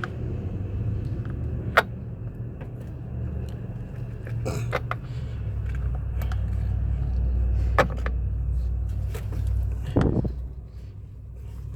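A steady low rumble that swells and then drops away about ten seconds in, with a few sharp metallic clicks and a heavier knock as metal parts are handled while connecting battery cables.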